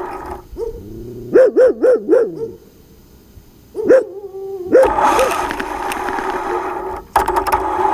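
A dog barking: a quick run of short barks about a second and a half in, then a few more. A steady rushing noise runs through the second half.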